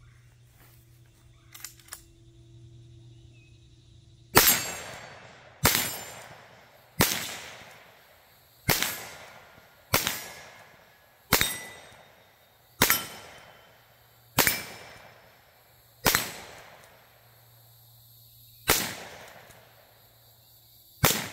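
Eleven single .22 Magnum rimfire shots, spaced a second or two apart. Each is a sharp crack with a short echoing tail. Two faint clicks come a few seconds before the first shot.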